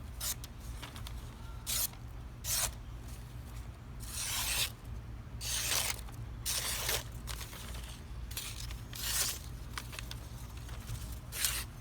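A knife blade drawn across paper in about eight separate dry, hissing strokes at uneven intervals, most brief and a couple longer, over a low steady hum. The strokes are either stropping on a copy-paper strop or slicing paper to test the edge.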